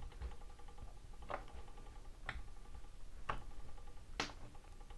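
Light clicks and taps of plastic utensils against small plastic cups while slime ingredients are mixed, four sharp ticks about a second apart but unevenly spaced, over a faint steady hum.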